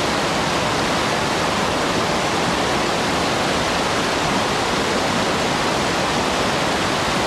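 Shallow river water rushing and splashing over rounded stones in a fast riffle: a steady, even rush.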